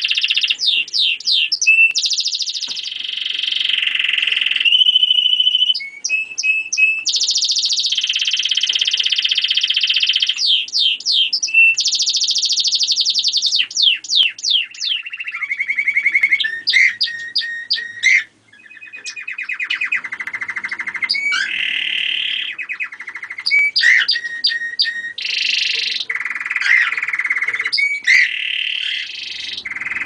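German crest canary singing a long, almost unbroken song: phrase after phrase of fast trills and rolls, each a rapid run of one repeated note before it switches to another, with a brief pause a little past halfway.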